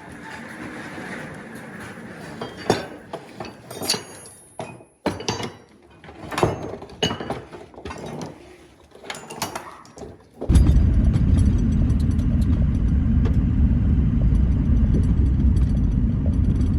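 Scattered metallic clinks and knocks of tools being handled and tossed together. About two-thirds of the way through, a loud, steady, low rumble starts abruptly and keeps going.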